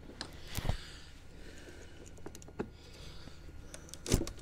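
Scattered sharp clicks and knocks as a car battery is handled and seated in its cradle, with two louder knocks, one under a second in and one near the end.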